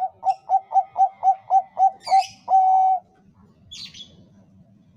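Zebra dove (Bangkok perkutut) singing: a quick run of about eight short coos, about four a second, ending in one long held coo about 3 s in. A brief higher chirp sounds around 2 s and again near 4 s.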